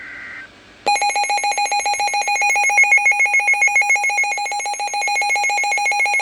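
NOAA Weather Radio alert: the tail of the screechy two-tone digital data burst ends half a second in, and after a short gap a loud, buzzy alert tone starts, pulsing rapidly and evenly, announcing a (test) tornado warning.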